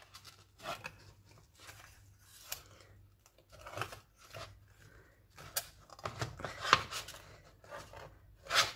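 Thin metal peel-off lid of a tin of canned meat being pulled back by hand: a string of short, irregular scrapes and crackles of metal tearing along the rim.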